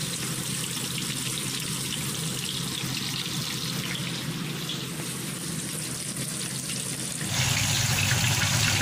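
Whole chicken deep-frying in a pan of hot oil: a steady, dense sizzle with fine crackling, which turns louder about seven seconds in.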